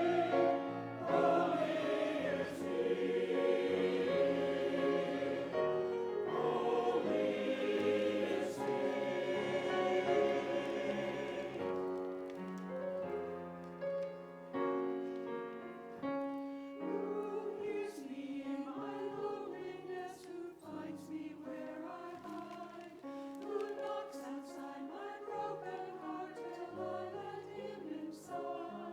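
A church choir singing sustained notes in several parts, fuller and louder for about the first twelve seconds, then softer and thinner.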